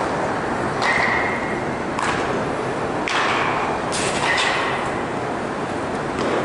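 Baseball bats striking balls in indoor batting cages: sharp cracks about once a second, some with a short ringing ping, echoing in the large hall over a steady background din.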